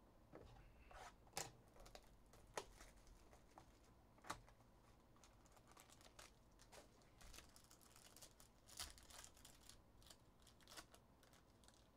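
Faint handling of trading-card packaging: a few sharp clicks and snaps as a cardboard box is opened, then crinkling as a foil card pack is torn open near the end.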